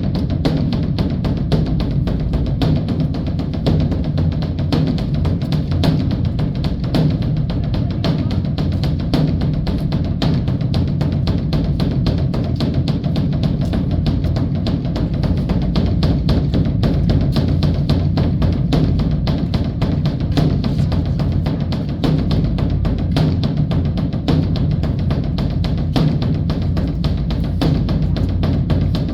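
Large Korean temple drum (beopgo) beaten in a fast, unbroken stream of strokes, deep and even in level throughout.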